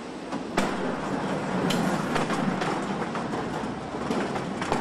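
Car assembly line noise: a steady machinery hum with several sharp metallic clicks and clanks, the loudest about half a second in and another near the end.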